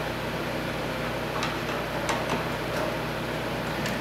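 Steady background hum with a few faint, light clicks of small metal hardware as a nut is threaded by hand onto a long machine screw.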